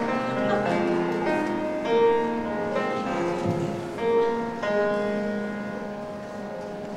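Grand piano playing a slow instrumental passage of single repeated notes over held chords, the last bars of a song, dying away over the last couple of seconds.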